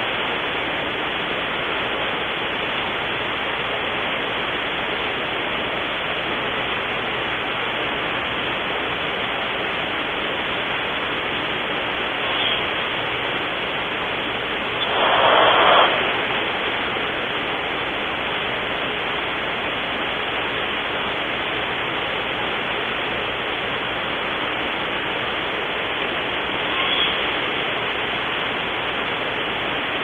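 Steady hiss of static, with a brief louder rush of about a second about halfway through, around the time a barn owl lands on the branch.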